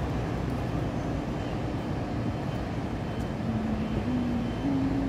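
Steady low rumble of city street traffic. A low hum that shifts in pitch in steps comes in over it in the last second or so.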